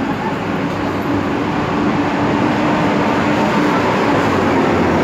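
A large vehicle's engine running steadily close by: a loud, even rumble with a low drone.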